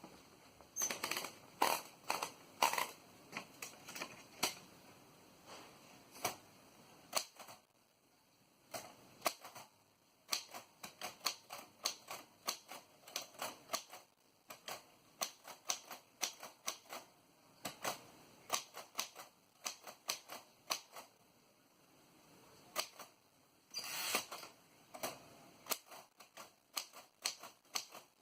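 Royal Quiet De Luxe portable manual typewriter being typed on: irregular runs of sharp key clacks with short pauses between them, louder and denser at the start and again near the end.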